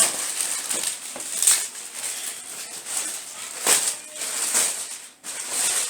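Rustling and crinkling of delivery packaging being handled and pulled open, in a series of irregular scrapes and crackles.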